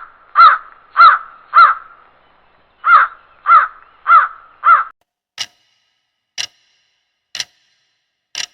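A bird calling in two runs of four loud calls, each about half a second apart. A timer then ticks about once a second.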